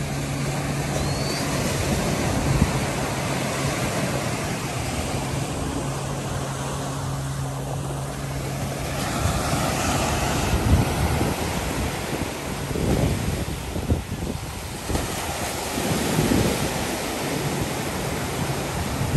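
Surf breaking and washing up the sand and against the hull of a grounded motor yacht, with wind on the microphone. A steady low engine drone runs under it for the first half, fades, and returns near the end.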